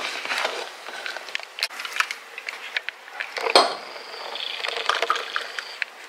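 Kitchen utensils clicking and scraping against a saucepan of hot milk while it is stirred and poured into a glass, with one sharper knock about three and a half seconds in.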